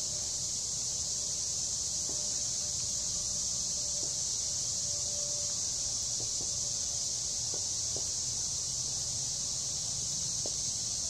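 Steady chorus of insects, a continuous high-pitched shrill drone that holds without pulses or breaks.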